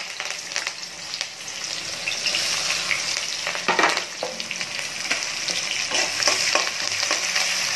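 Chopped onions and curry leaves sizzling and crackling in hot oil with mustard seeds and urad dal in a steel kadai, a tempering being fried. There is one louder sharp click a little before halfway, and near the end a steel spoon stirs through the pan.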